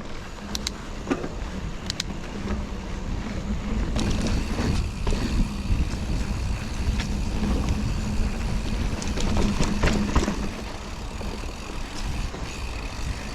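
Mountain bike being ridden down a dry dirt trail: a steady rumble of tyres on the ground and wind on the action-camera microphone, with scattered clicks and rattles from the bike over bumps.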